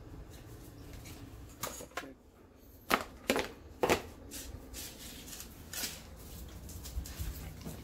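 A handful of sharp clacks and knocks of hard plastic plates as dogs grip them in their teeth and carry them off, the loudest three between about 3 and 4 seconds in, over a low background hum.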